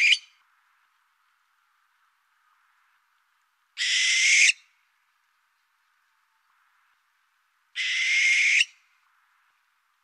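Barn owl screeches: the tail of one at the very start, then two more, each under a second long and about four seconds apart.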